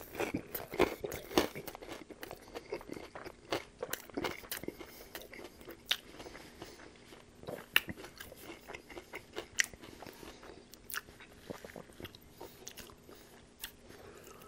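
Close-up eating sounds of a person biting and chewing a panko-breaded fried chicken chalupa shell: loud crunchy bites in the first second or so, then irregular crunching and crackling as he chews.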